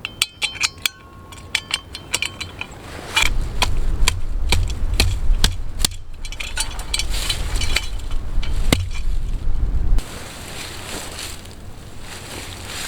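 A quick series of sharp metallic clicks and clinks, the first few ringing briefly. About three seconds in, a low wind rumble on the microphone starts under further clicks, and it stops abruptly about ten seconds in.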